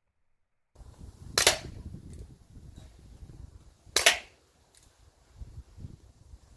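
Umarex Colt Single Action Army CO2 pellet revolver firing: two sharp shots about two and a half seconds apart, with a third right at the end, and fainter clicks between the shots.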